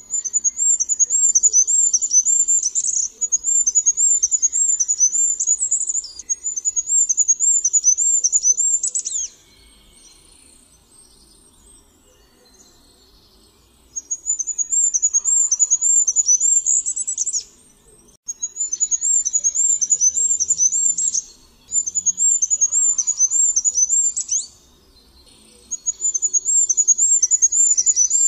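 Goldcrest singing: very high, thin songs of quickly repeated notes, each ending in a short flourish. The songs follow one another in quick succession, with a pause of a few seconds about a third of the way in and a shorter one near the end.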